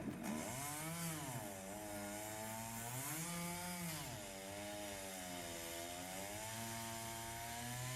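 Chainsaw running at high revs, its engine speed dipping and climbing back several times, then holding fairly steady near the end.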